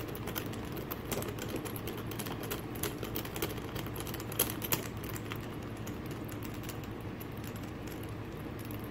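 Precision Torx screwdriver backing a long screw out of a GPS unit's case: a run of small, irregular ticks and clicks from the bit and handle, thicker in the first half and thinning out later.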